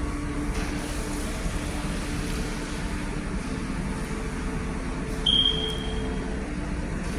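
Steady background hum and noise of a fast-food restaurant dining room. About five seconds in there is one short high-pitched tone that fades away quickly.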